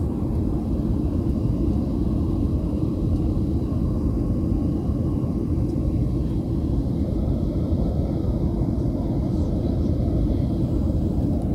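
Steady low rumble of a Boeing 737 airliner's jet engines and rushing airflow, heard from inside the passenger cabin during the climb after takeoff.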